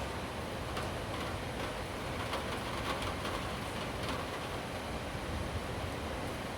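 Steady thunderstorm rain, an even hiss of falling drops.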